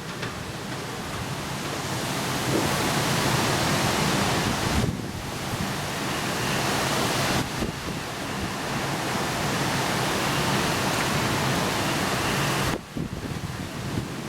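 Squall wind and heavy downpour in a thunderstorm: a dense, steady rush of wind and rain that builds over the first couple of seconds, with short lulls about five, seven and a half and thirteen seconds in.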